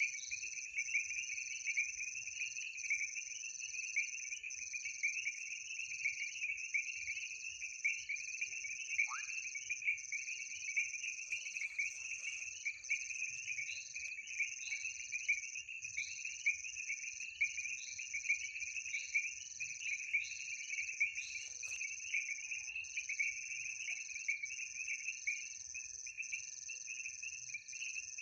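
Night chorus of crickets and frogs: a steady high trill that breaks about once a second, over a dense, unbroken layer of rapid chirping.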